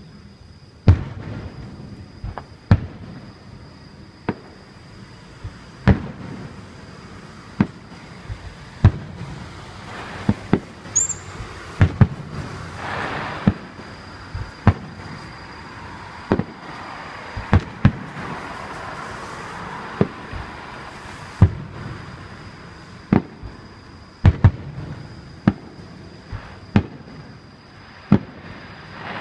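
Aerial fireworks bursting: a string of sharp booms at irregular intervals, roughly one every second or so, with a spell of hissing in the middle.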